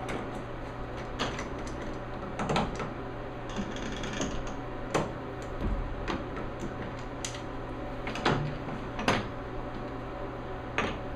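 Scattered clicks and knocks of metal tooling being handled as the knurling tool is taken off the lathe, over a steady low hum.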